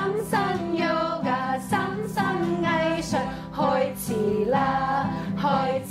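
Several women singing a children's song together, accompanied by a strummed acoustic guitar.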